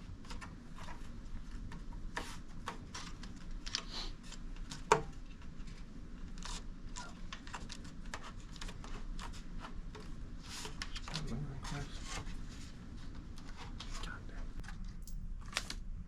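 Handling sounds from sluice box parts and riffle mats being fitted: scattered small clicks, rubs and rustles, with one sharper click about five seconds in.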